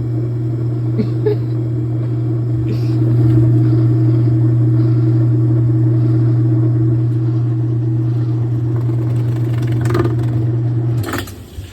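Whirlpool direct-drive washing machine running with a wash plate fitted on its drive shaft: a steady low motor hum that cuts off suddenly near the end.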